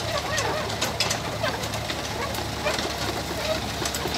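Yanmar ViO27 mini excavator's diesel engine running with a steady low hum and scattered sharp clicks, with short wavering bird-like calls over it.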